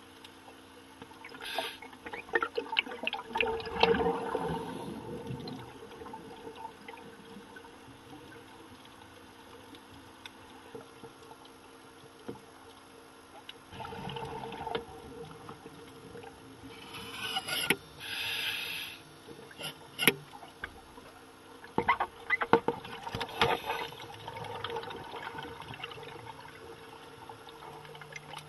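Underwater sound of a scuba diver breathing out: several bursts of bubbles, with scattered sharp clicks and a faint steady hum underneath.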